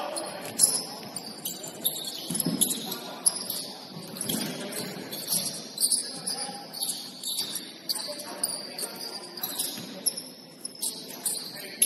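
Indoor basketball game in play: sneakers squeaking on the court and a ball bouncing, in short sharp sounds scattered through the gym's echo, with scattered voices.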